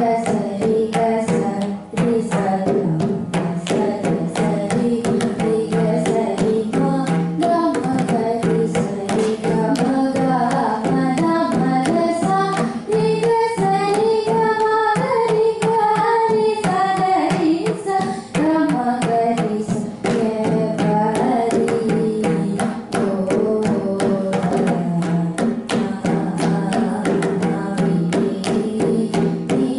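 Carnatic vocal performance: a girl's singing voice carrying a melody, accompanied by a mridangam playing steady rhythmic strokes, over a constant drone underneath.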